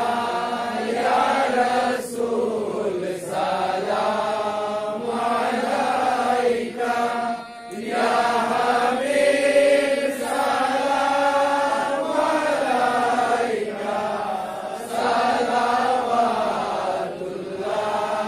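Men's voices chanting an Islamic devotional hymn in long, drawn-out notes that slide slowly up and down, with a short break for breath about seven and a half seconds in.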